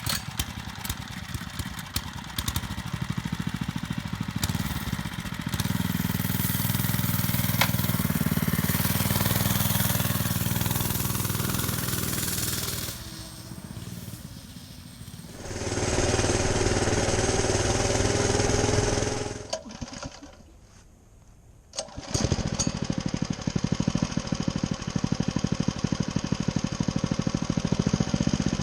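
Mini bike's small single-cylinder engine starting, revving up and running, in several back-to-back recordings. Level drops briefly twice, nearly to silence a little after the middle. Near the end it settles into a fast, even putter.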